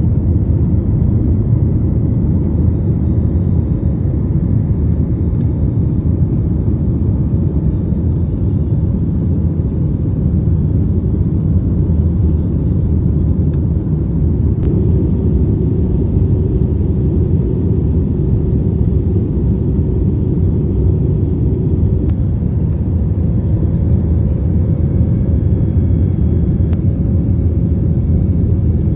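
Steady low rumble inside a jet airliner's cabin in flight: engine and airflow noise. It holds an even level, with a faint steady hum that changes pitch about two-thirds of the way through.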